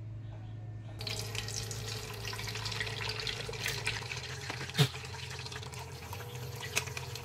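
Egg frying in hot oil in a small electric frying pan: sizzling and crackling that starts about a second in, with two sharp pops, the first the loudest.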